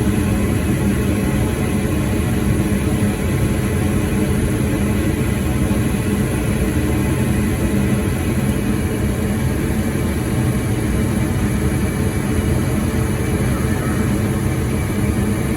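Gas furnace running with a steady low rumble, its flame sensor freshly cleaned so that it no longer keeps shutting off.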